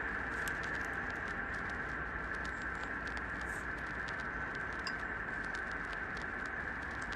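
Puppy suckling at its mother's teats: quick, irregular small wet clicks and smacks over a steady high hiss.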